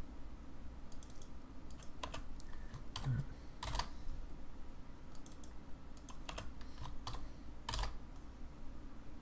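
Computer keyboard typing: short irregular runs of keystrokes, a few of them louder, over a faint low hum.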